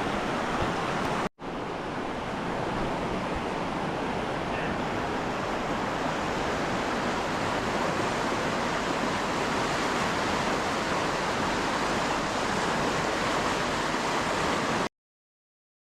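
Steady rushing water of a whitewater rapid. It drops out for an instant a little over a second in, then cuts off suddenly near the end.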